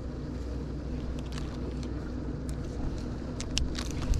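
Steady low mechanical hum aboard a bass boat, with a run of sharp clicks and knocks from about a second in, loudest near the end, as a bass and the gear are handled.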